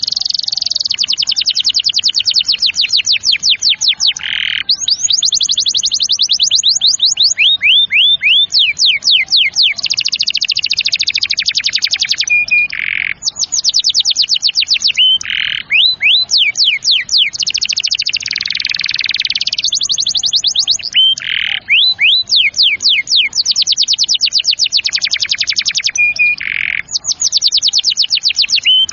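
Domestic canary singing a long rolling song: fast trills of repeated high falling notes that switch to a new phrase every few seconds, with only brief breaks.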